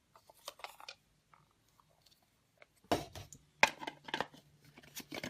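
Plastic stacking cups being handled, knocking and clattering against each other in short clusters of clicks, loudest from about three seconds in.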